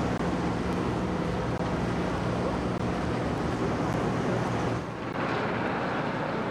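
Engines and machinery of a salvage ship running steadily, a low hum under a broad rush of noise, with wind on the microphone; the sound dips briefly about five seconds in.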